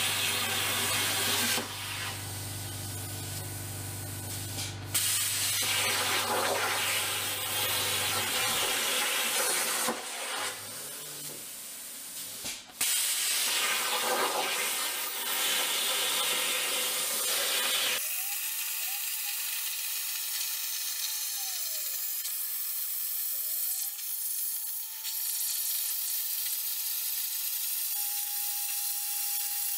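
CNC plasma cutter cutting steel plate: a steady, loud hiss of the plasma arc and air jet, with a deep hum under it for the first several seconds. About halfway through, a faint whine joins in, rising and falling in pitch and then holding steady near the end.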